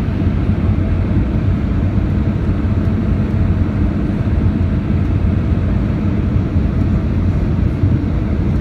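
Airbus A319 cabin noise at a window seat by the wing in flight: jet engines and rushing air make a steady low rumble with a faint hum, unchanging throughout.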